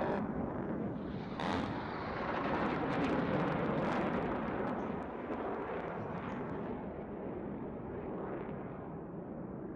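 Live fire from a fighter jet striking a rocky mountainside target. A sudden blast is followed by a second about a second and a half later, then a crackle of many impacts over a continuous rumble, which fades off over the last few seconds.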